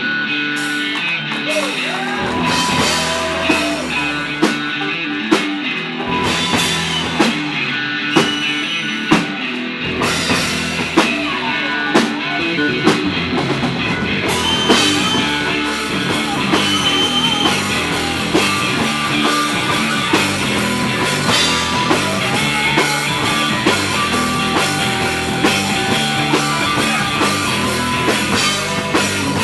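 Rock band playing live: guitar over a drum kit, loud and steady, with sharp drum hits punctuating the beat.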